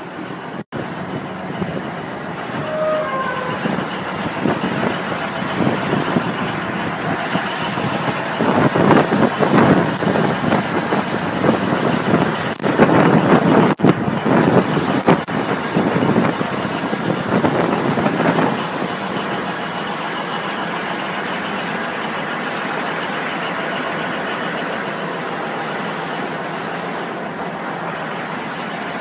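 A Hitachi EX1200 long-reach excavator's large diesel engine running, heard close up. It is louder and more uneven for about ten seconds in the middle, then settles to a steady run.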